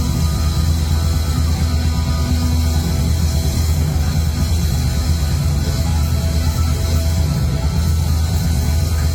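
Loud heavy rock music, a dense steady wall of sound with a strong low end.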